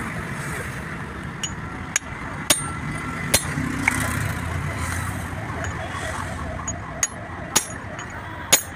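Hammer blows on steel as a truck propeller shaft's universal-joint cross and bearing cups are worked into the yoke: about eight sharp metallic strikes at uneven intervals, each with a short high ring, the loudest near the end. A steady low rumble runs underneath.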